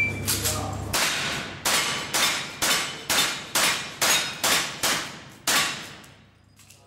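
A fast string of about ten rifle shots, roughly two a second, each followed by a short echoing decay in an indoor range. The shots stop about five and a half seconds in.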